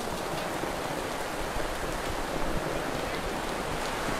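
Steady rain falling, an even hiss of water.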